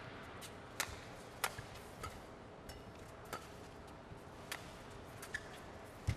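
Badminton rally: the sharp crack of racket strings hitting a shuttlecock, repeated roughly once a second as the shuttle goes back and forth.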